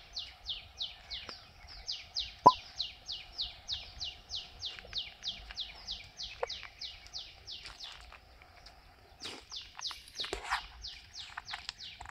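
A bird calling with a fast run of high chirps, about four a second, each note falling in pitch; it breaks off about eight seconds in and starts again a second or so later. A faint steady hum lies underneath, and a single sharp click about two and a half seconds in is the loudest sound.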